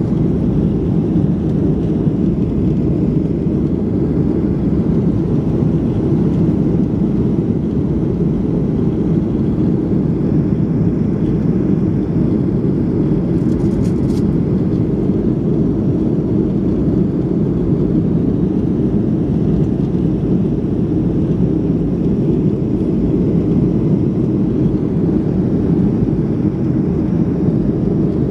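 Steady low drone of a Boeing 737's jet engines and airflow heard inside the passenger cabin during the climb after takeoff.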